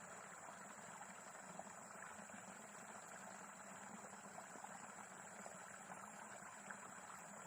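Near silence: faint steady outdoor background hiss with a thin high steady tone and a few faint ticks.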